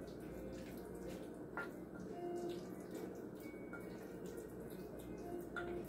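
Stirring spaghetti squash and barbecue sauce in a ceramic bowl: soft wet mixing with a few light clicks of the utensil against the bowl.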